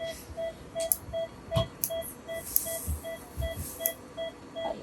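Patient monitor on an anaesthetised cat beeping evenly with each heartbeat, about two and a half beeps a second, with a few sharp clicks and a brief hiss over it.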